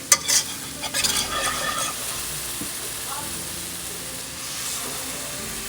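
A whisk stirring butter and flour into a roux in a hot pan, clicking and scraping against the pan for the first couple of seconds. After that comes a steady sizzle.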